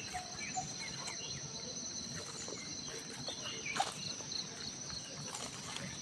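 Morning countryside ambience: insects keep up a steady, high-pitched drone throughout, while birds add scattered short chirps and calls.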